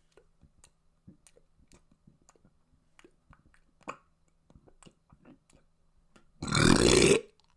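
Faint small clicks and mouth noises, then one loud burp lasting about a second near the end.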